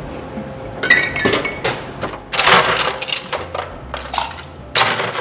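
Stainless steel cocktail shaker tins and a metal jigger clinking together, with two short bursts of clattering as the contents are tipped from one tin into the other, readying the drink for shaking.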